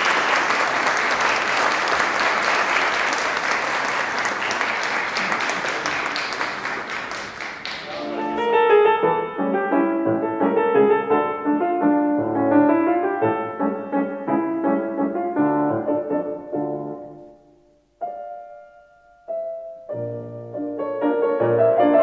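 Audience applauding for about eight seconds, easing off, then piano music starting with separate struck notes. Near the end the music drops to a single held note for a moment before the piano picks up again.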